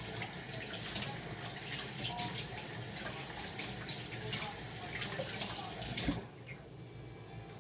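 Water running from a tap into a sink, splashing as hands are washed under it; the flow stops about six seconds in.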